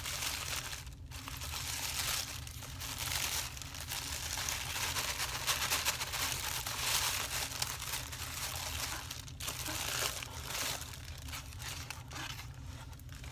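Sheet of aluminium foil wrapping being crinkled and pulled off a package by hand, a continuous crackling crinkle with a few short pauses.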